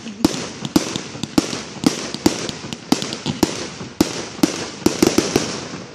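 Aerial fireworks going off in a rapid, irregular series of sharp bangs, about three or four a second.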